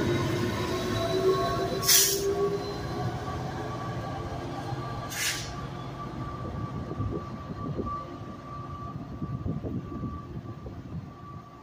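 Two-stroke V16 EMD 16-710G3B diesel prime mover of an NJ Transit PL42AC locomotive working under load as it pushes a train away from the station. The engine sound fades steadily as it recedes, over a steady high whine, with two short hisses about two and five seconds in.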